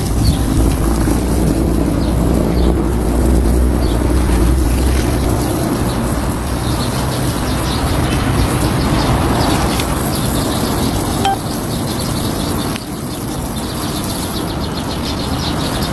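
Garden hose spray nozzle spraying water steadily onto a mesh sack of oysters in the shell and wet pavement, a continuous hiss. A low rumble runs underneath and fades out about five seconds in.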